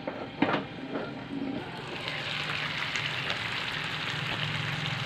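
Marinated chicken frying in a Dessini double-sided grill pan: a sharp metal clank about half a second in as the pan's lid is worked open, then a steady sizzle that grows louder from about two seconds in as the lid comes up.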